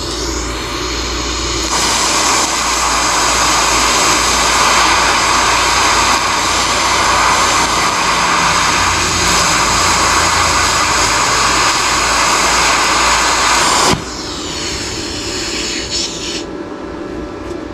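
TIG welding arc from a YesWelder Flux 135 Pro, lift-started, burning on galvanized mild steel with stainless filler rod: a steady hiss that starts suddenly about two seconds in and cuts off sharply near the end. A quieter hiss carries on for a couple of seconds after the arc stops.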